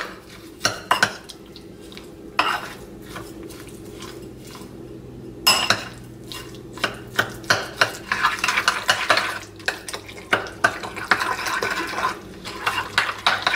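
A metal spoon stirring thick gelled cranberry sauce with onion soup mix and brown sugar in a glass bowl, knocking and scraping against the glass. The strokes are sparse at first and turn busier and more continuous from about halfway through.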